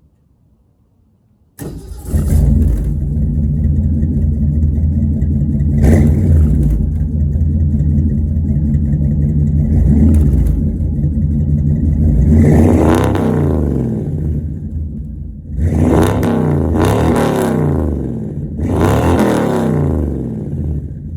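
A 1950 Ford shoebox's swapped-in Ford 289 V8 starts up about a second and a half in and idles with a rumble. The throttle is then blipped a couple of times and revved up and back down three times near the end.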